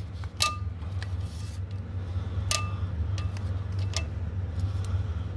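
Four or five sharp metallic clicks, spaced irregularly, each with a brief ring, as the clutch disc is held and shifted against the flywheel. A steady low hum runs underneath.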